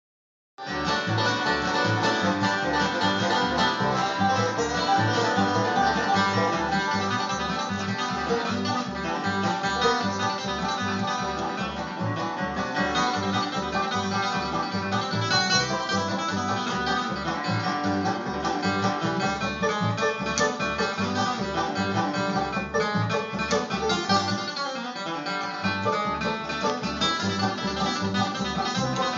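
Bluegrass band playing an instrumental: banjo and guitar picking over a steady bass beat, starting about half a second in.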